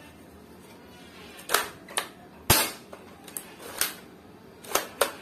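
Bolt-action mechanism of an AWM L96 foam-dart blaster being worked by hand: a run of about seven sharp clacks, some in quick pairs, the loudest about two and a half seconds in.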